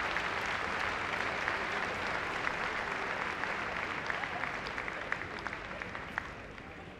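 Audience applauding: dense clapping that thins out and fades over the last few seconds.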